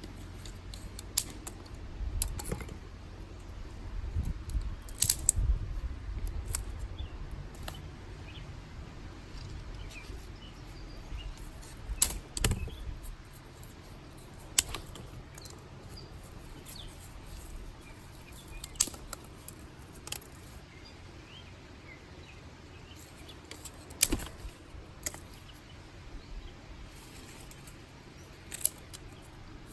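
Dry sticks and twigs snapping: sharp cracks scattered every few seconds, the loudest about twelve and twenty-four seconds in. Faint bird chirps behind.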